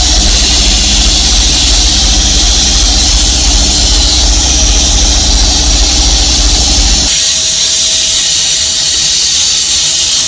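A power tool or machine running steadily with a loud hiss. Its low hum stops about seven seconds in while the hiss carries on.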